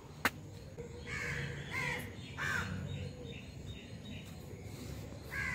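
A sharp click just after the start, then a bird giving short harsh caws, three between about one and three seconds in and one more near the end.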